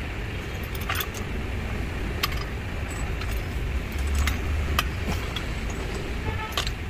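Light metallic clinks and rattles, a few scattered ones, from a 2-ton hydraulic trolley jack's steel frame, wheels and loose parts as it is turned over in the hands for inspection, over a steady low rumble.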